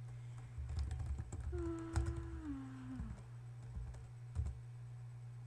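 Scattered clicks and taps of typing on a computer keyboard, with a short pitched sound stepping down in pitch about a second and a half in, over a steady low hum.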